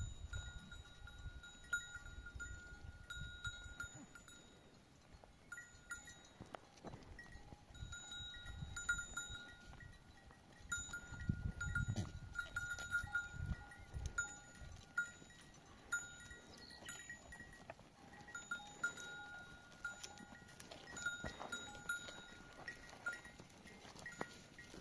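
Bells worn by sheep and goats ringing on and off as the flock moves, with a low rumble at times.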